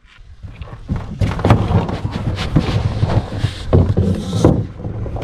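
Irregular thuds, knocks and scraping on a canoe hull as people climb aboard and push off from a sandy shore, mixed with rubbing and bumping from the camera being handled.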